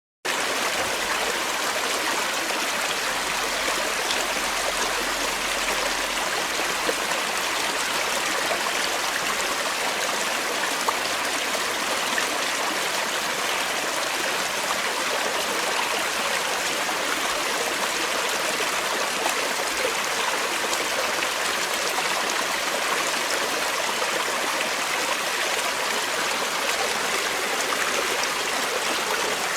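Forest stream running steadily over rocks: a continuous rushing and babbling of water with no break.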